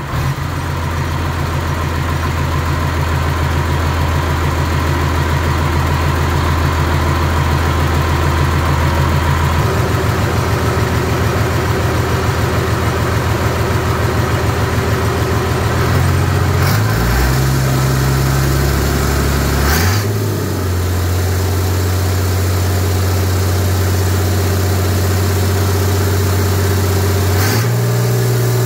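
Freshly rebuilt six-cylinder Perkins diesel engine running on a test stand during its run-in, a steady diesel clatter. Its speed changes several times: it shifts about a third of the way in, picks up past the middle, dips briefly about two-thirds in, and rises again near the end.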